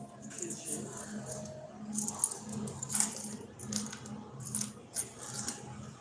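Irregular clicks and rustling with light metallic jingling, over a faint low hum that pulses about twice a second.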